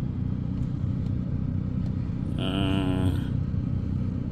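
Steady low rumble like running vehicles, with a brief horn-like pitched tone lasting about a second halfway through.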